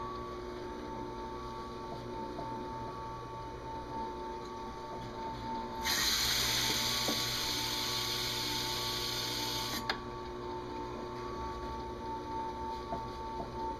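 Drill press running with a steady whine; from about six to ten seconds in its spinning 2-inch abrasive pad is pressed onto the aluminum sheet, a loud hissing scrub that stops with a click. This is engine turning, swirling one overlapping spot into the metal.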